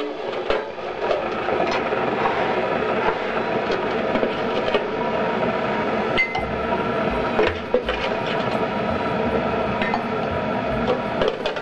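A metal teaspoon scooping ground coffee and clinking against ceramic mugs and the coffee container, in scattered sharp clicks. Underneath runs a steady rushing noise.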